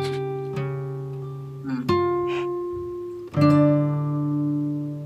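Background music: guitar chords struck a few times and left to ring, with no singing.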